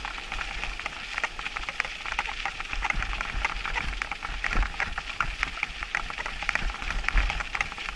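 Mountain bike tyres crunching over packed snow: a dense, irregular crackle, with uneven low wind rumble on the microphone.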